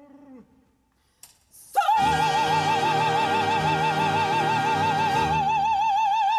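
Operatic voices with orchestra: a baritone's sung phrase dies away about half a second in. After a brief pause, a mezzo-soprano launches a loud high note about two seconds in and holds it with wide vibrato over a sustained orchestral chord.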